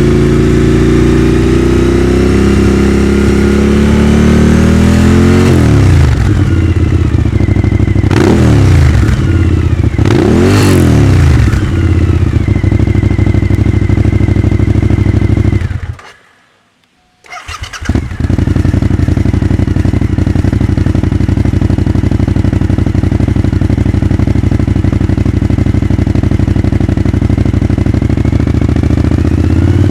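Suzuki SV1000's 1,000 cc V-twin engine, idling and revved: the revs climb slowly, then come several quick blips up and down. About halfway through it cuts out for a second or two, starts again and settles into a steady idle.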